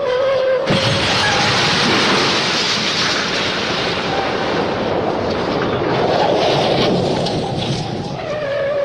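MGM cartoon 'elephant smash' sound effect: a held tone breaks off into a long, dense crashing rumble lasting about seven seconds. The tone comes back near the end.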